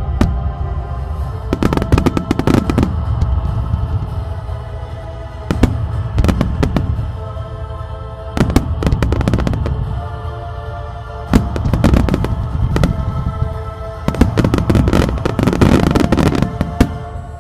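Aerial firework shells bursting in about five volleys of rapid bangs and crackles, a few seconds apart, over sustained music from a show soundtrack.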